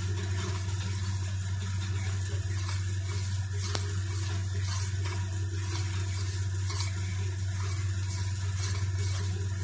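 A steady low hum, with faint scraping and liquid sounds of a spoon stirring custard mixture into milk in a steel pot, and one sharp click a little under four seconds in.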